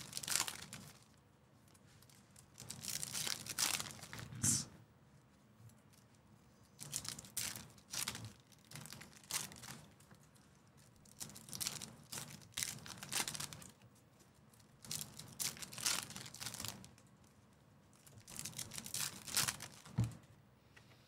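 Foil wrapper of a Topps Chrome baseball card pack crinkling and tearing as it is opened, then cards rustling and sliding against each other as they are flipped through, in short bursts every few seconds. A low thump near the end.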